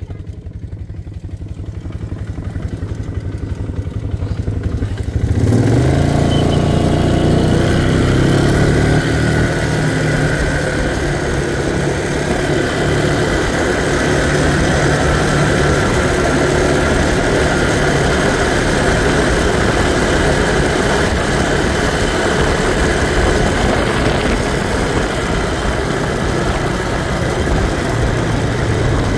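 ATV engine idling, then revving up and pulling away about five seconds in, with a brief rise in pitch. It then runs steadily at riding speed.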